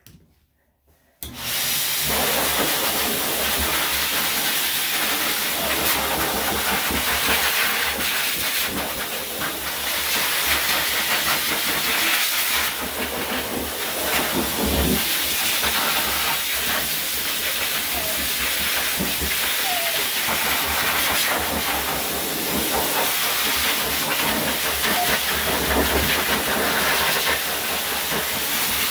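Hose-type pet blow dryer switched on about a second in, then blowing a loud, steady rushing hiss of air as it is worked over a wet dog's coat.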